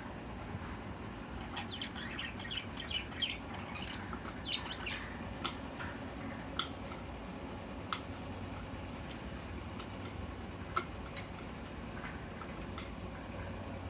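Pet budgerigars chirping and chattering in short quick bursts, followed by a few sharp isolated clicks, over a steady low hum.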